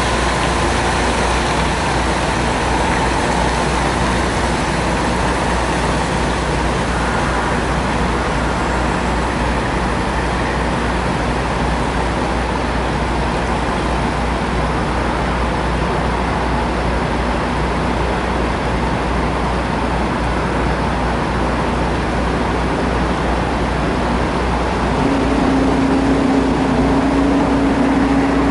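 Diesel semi-truck engines running steadily, with a low engine hum underneath. A steady drone joins near the end.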